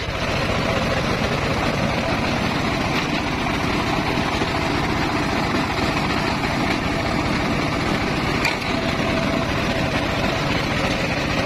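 Engine-driven circular saw for cutting timber, running steadily with an even drone and no clear change in level.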